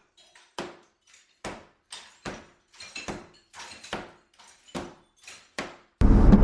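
A series of short, sharp knocks, about two a second at uneven spacing, with quiet between them. Near the end, music cuts in suddenly.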